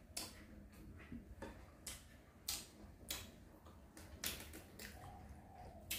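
Faint, irregular wet clicks of a mouth chewing and smacking, about two a second, while eating boiled fish roe.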